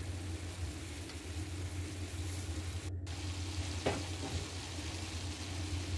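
Ground beef and Italian sausage sizzling as they brown in a stainless steel skillet, stirred with a silicone spoon, with a short scrape of the spoon just before four seconds in. The sound drops out for an instant about three seconds in.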